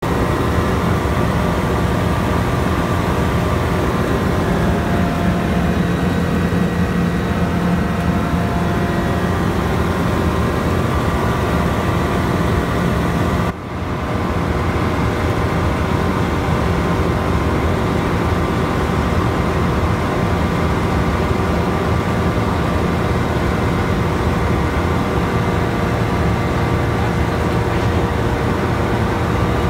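Steady drone of a Rans Coyote light aircraft's engine and propeller in cruise, heard from inside the cockpit, with a few steady tones over a noisy rush. The level dips for a moment about halfway through.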